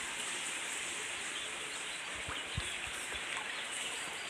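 Steady rush of a small river's flowing water, with faint bird chirps over it and a couple of soft low thumps a little past the middle.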